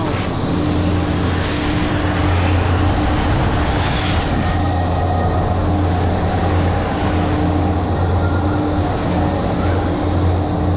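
A loud, steady machine drone with a deep, even hum.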